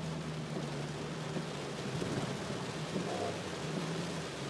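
A car's engine running low and steady under a constant rush of rain and water, heard from inside the cabin as the car moves through deep floodwater.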